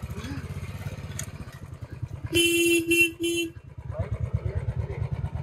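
Royal Enfield single-cylinder motorcycle engine running at low speed on a rough rocky trail, with a horn sounding three times a little over two seconds in: one longer beep, then two short ones.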